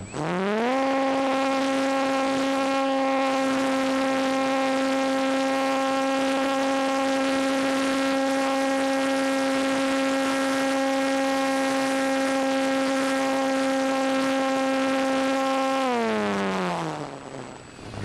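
Parkzone T-28 Trojan RC plane's electric motor and propeller, heard from onboard: a steady high-pitched whine that rises quickly as the throttle opens, holds at one pitch, and winds down near the end as the throttle is eased off.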